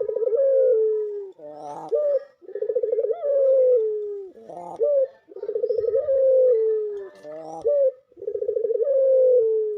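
Dove calling: four long, rolling coos, each sliding down in pitch, with a short rising note between them.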